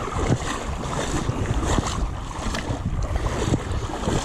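Wind buffeting the microphone, with river water lapping and sloshing close to it in irregular splashes.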